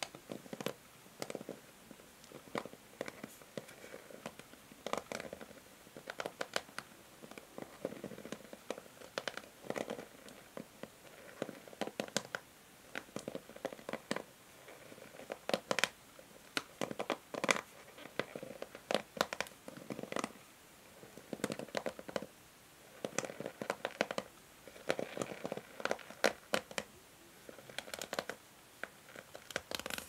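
Fingers and long fingernails raking across the plastic ball-tipped pins of a paddle hair brush: an irregular stream of quick clicks and scratchy rustles as the pins flick back.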